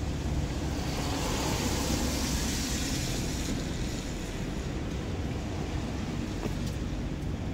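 Steady outdoor traffic noise, with a hiss that swells about a second in and drops away a couple of seconds later, like a vehicle passing.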